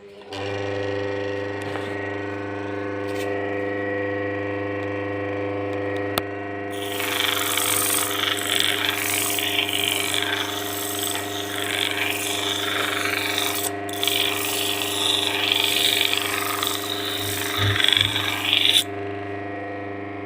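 Homemade sanding machine's washing machine motor switching on and running with a steady hum. A few seconds in, a coconut shell is pressed against the sander, giving a loud, continuous rasping grind with one brief break. The grinding stops near the end while the motor keeps humming.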